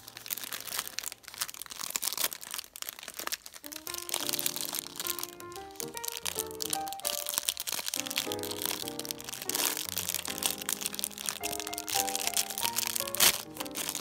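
Clear plastic snack-cake wrapper crinkling and crackling as it is handled and pulled open, with one sharp crackle near the end, over background music with a melody.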